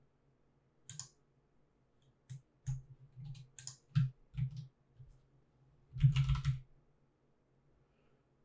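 Computer keyboard and mouse clicks: a few scattered single clicks and key presses, then a quick run of typing about six seconds in.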